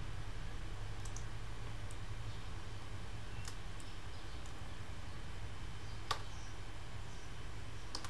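A few sharp, scattered computer mouse clicks and keypresses, the loudest about six seconds in, over a steady low hum.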